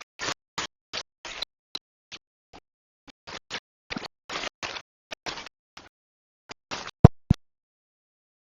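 Short scraping strokes, irregular, about two or three a second, like a utensil worked against a pan or board. About seven seconds in come two sharp knocks in quick succession, then the sound stops.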